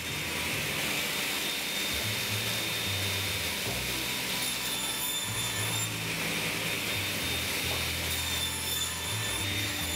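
Background music with a bass line that moves between notes, over a sliding table saw running and cutting a hardwood panel.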